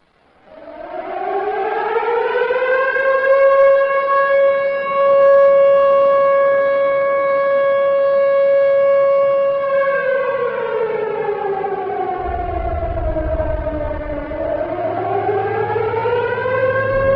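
Air raid siren recording played through scale-model Altec 817 bass horns with 4.5-inch woofers and small Vari-Intense horns. The siren winds up over about two seconds, holds a steady tone, winds down from about ten seconds in, then winds back up near the end. A low rumble sits underneath in the second half.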